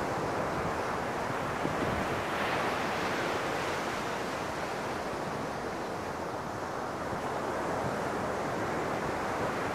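Ocean surf washing onto a sandy beach, a steady rush that swells and ebbs as waves break, with wind on the microphone.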